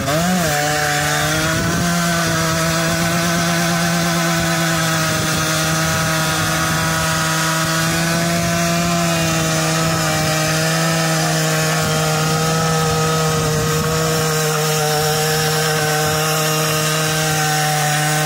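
Aprilia SX 50 moped's 50cc two-stroke single engine held at high, steady revs through a stationary burnout, the rear tyre spinning on the asphalt.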